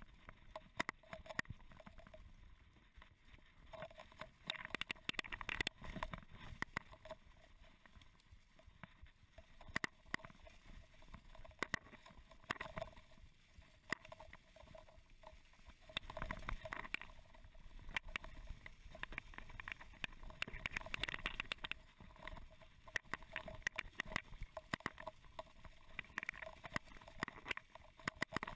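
Mountain bike rolling downhill on a forest track thick with fallen leaves: tyres rustling through the leaves, with frequent sharp clicks and rattles from the bike over bumps, picked up through the handlebar-mounted camera.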